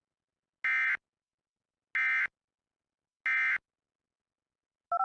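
Emergency Alert System End of Message code: three short bursts of screechy SAME digital data tones, about 1.3 s apart, marking the end of the alert. Near the end a short run of electronic tones stepping between pitches begins.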